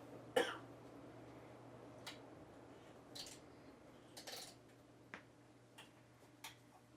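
Hunter Original ceiling fan running on high speed: a faint, steady low motor hum, with a handful of short clicks and taps scattered over it, the loudest about half a second in.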